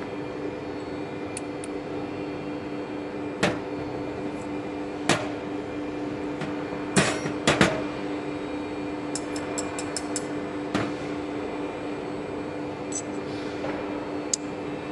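Steady machine hum with sharp metal knocks and clicks as a CNC router's tool holder is changed by hand: single knocks a few seconds apart, a quick cluster of three about halfway through, then a run of light ticks.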